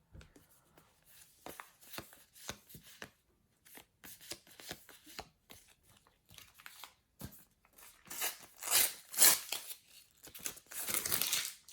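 A sticker packet being torn open: faint taps and rustles of handled stickers, then louder tearing and crinkling of the wrapper in several bursts from about eight seconds in.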